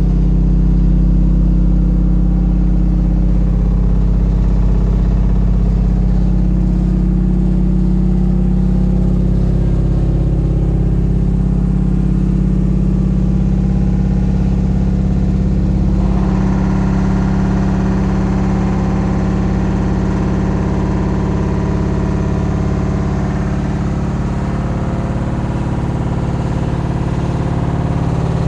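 LG ThinQ WM12WVC4S6 washing machine spinning at 1000 rpm: a loud, steady hum made of several low tones. About halfway through, a higher whirring noise joins in on top. This is the spin noise the owner is recording.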